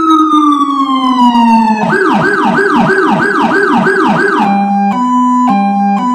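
Federal Signal PA200 electronic siren tones from a siren-simulator app. A wail tone falls slowly in pitch, then about two seconds in it switches to a fast yelp of about three sweeps a second. Near the end it switches to a two-tone hi-lo alternating about every half second.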